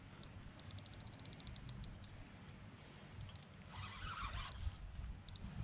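Spinning fishing reel clicking rapidly, about ten even clicks a second for under two seconds, while a big Siamese carp is played on the rod. A brief rustle follows about four seconds in, over a low rumble.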